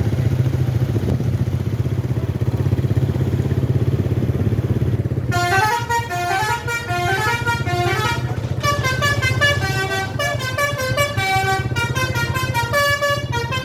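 A bus's telolet horn, a set of tuned multi-tone horns, plays a quick tune of short stepping notes, starting about five seconds in and running on, over the steady sound of an engine running.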